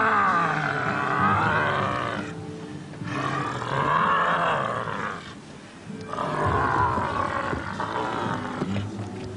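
Three long roars from the show's sea monster, each about two and a half seconds, with short gaps between them.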